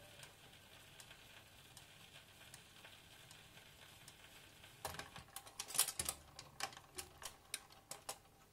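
Record changer of a 1955 Regentone AGR79 radiogram: the stylus ticks faintly once per turn in the run-out groove at the end of a record. About five seconds in, the autochanger mechanism clatters in a run of sharp clicks as the pickup arm swings clear of the record.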